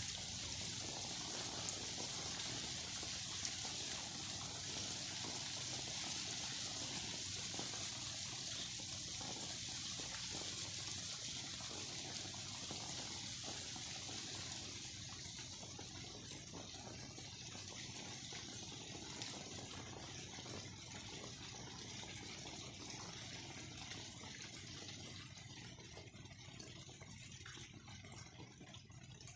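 Steady rain falling, an even hiss that slowly grows quieter over the second half.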